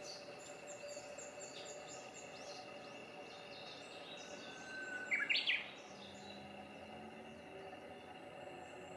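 Wild birds chirping and singing. One louder call about five seconds in starts with a held whistle and ends in a quick flourish of notes.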